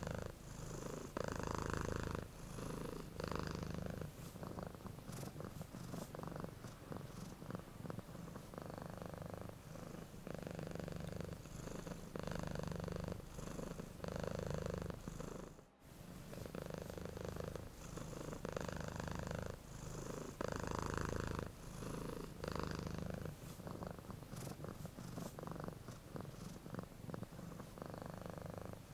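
Domestic cat purring close up, the purr swelling and easing in a regular rhythm as it breathes in and out. There is a brief gap a little past halfway.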